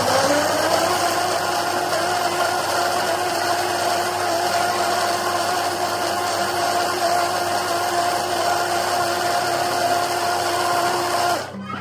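Countertop blender running at high speed, its motor pitch rising in the first second and then holding steady, and cutting off suddenly near the end.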